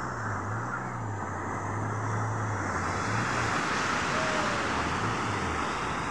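Surf washing onto a sandy beach, a steady rush of breaking waves, with the low drone of a small fishing boat's outboard motor running as the boat comes in to shore; the motor's pitch wavers slightly and it drops away near the end.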